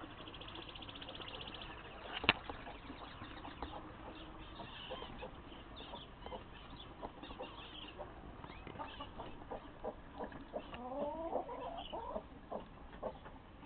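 Small aviary birds chirping and twittering, with a run of lower clucking calls from chickens near the end. A single sharp knock about two seconds in.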